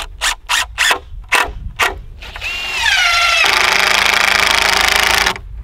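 Cordless impact driver driving a screw into a wooden board. A few short bursts come first, then the motor runs with a falling whine. About three and a half seconds in, the rapid impact hammering kicks in as the screw seats, and it stops abruptly shortly before the end.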